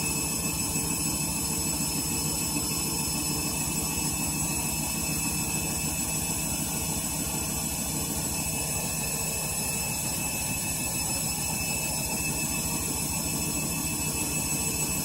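Candy Grande Vita 7 kg washing machine on its final spin: a steady drum rumble with a constant high whine, which the owner takes as a sign of bearings on the way out.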